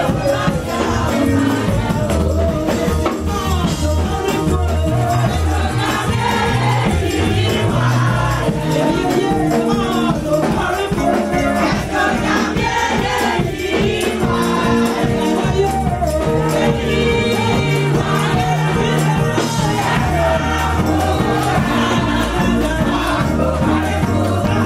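Upbeat church gospel music: voices singing over a steady bass beat with bright shaken percussion.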